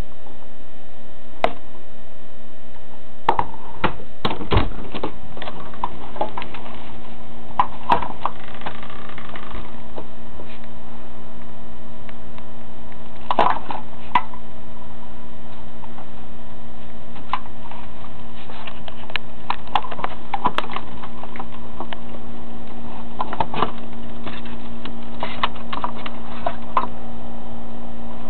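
Raccoons rummaging in a garbage bin full of aluminium cans and plastic bags: irregular clicks, knocks and crinkles, busiest in short spells, over a steady electrical hum.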